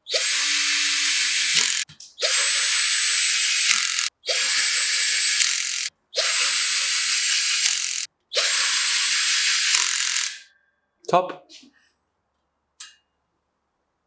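Loud hissing in five bursts of about two seconds each, separated by short breaks. A few knocks and rattles follow near the end.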